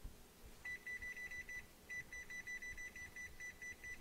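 Rapid run of short, high-pitched electronic beeps from a kitchen appliance's beeper, about six a second, with a brief pause about a second and a half in.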